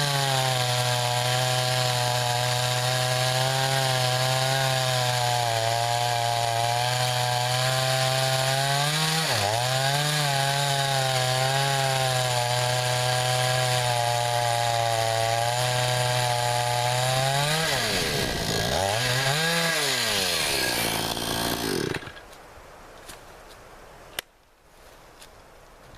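Two-stroke chainsaw cutting through a pecan log at steady high revs, dipping briefly under load about nine seconds in. Near the end the revs fall and rise twice, then the engine stops, and a single click follows.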